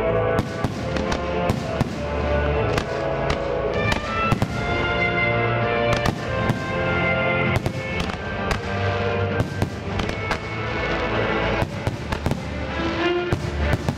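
Aerial firework shells bursting, many sharp bangs in quick succession, over the accompanying music of a music-synchronised fireworks show.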